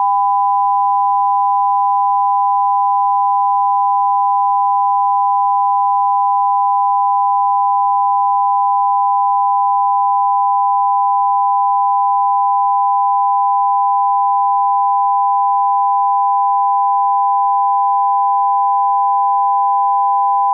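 Test-card line-up tone: two steady pure tones sounding together, held without a break.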